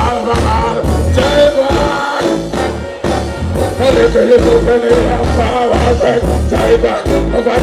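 Live band playing with a heavy, regular bass beat, guitar and keyboards, while a male deejay sings into a microphone over it through the PA.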